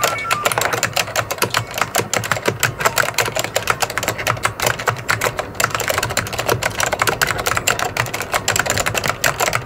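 Rapid, irregular clicking of keys being typed, many strokes a second, accompanying text appearing letter by letter.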